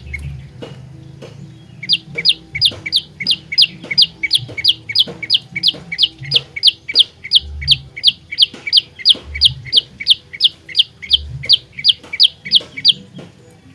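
Olive-backed tailorbird (prenjak lumut) calling: a long, fast run of sharp, loud notes, each dropping slightly in pitch, about three a second. The run begins about two seconds in after a short pause and stops just before the end. A few faint low thumps sound underneath.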